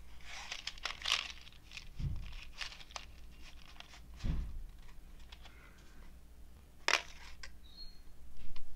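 Crinkling and rustling of a BeanBoozled jelly bean box being handled close to the microphone, with scattered light clicks and two low thumps about two and four seconds in.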